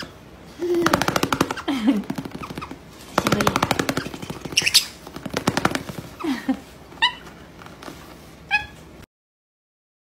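White-bellied caique vocalizing: two long, rapid rattling buzzes, a few low falling whines, then two short high squeaks near the end. The sound cuts off suddenly about nine seconds in.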